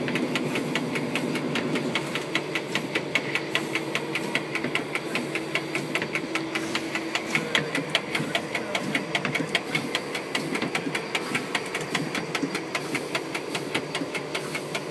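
Diesel locomotive engine running, heard inside the driver's cab: a steady hum under a fast, even clatter of about six knocks a second.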